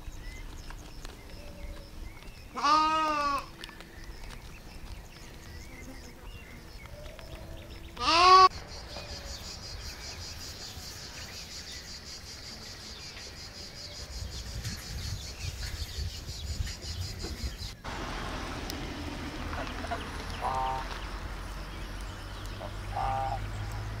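Farm animals bleating: two loud bleats about three and eight seconds in, the second the loudest and rising in pitch. A steady high hiss follows until an abrupt cut near eighteen seconds, then two fainter short calls.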